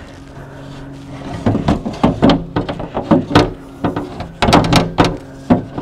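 Replacement sliding-door window glass of a Toyota Sienna knocking against the door frame and internals as it is worked down into the door, where it catches on the door handle cable. Irregular sharp knocks, coming thick and fast from about a second and a half in.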